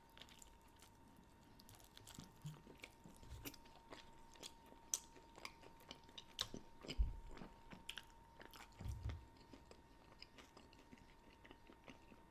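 Close-miked chewing of a shredded brisket taco: soft, scattered wet clicks and smacks of the mouth. A faint steady high tone sits underneath.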